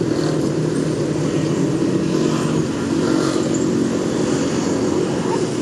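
Street traffic with motorcycle and car engines running close by, a steady engine hum whose pitch shifts about halfway through.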